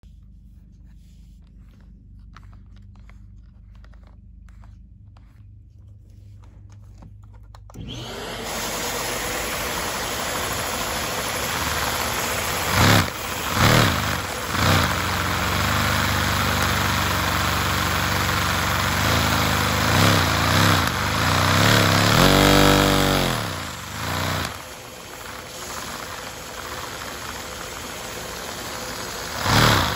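Vacuum cleaner motor switching on about eight seconds in, spinning up and then running steadily. Its pitch wavers and dips for a few seconds a little past the middle. A few sharp knocks come shortly after it starts.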